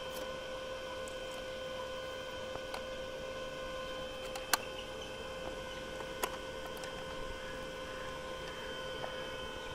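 Steady electrical hum at one fixed pitch with overtones above it. Two faint clicks sound near the middle.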